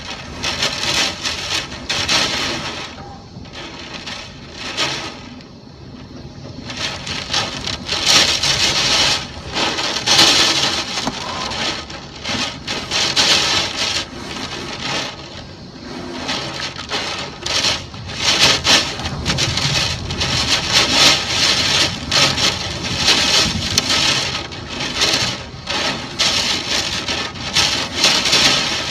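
Typhoon wind gusting through trees, a noisy rushing hiss of thrashing foliage that swells and falls back in waves every few seconds.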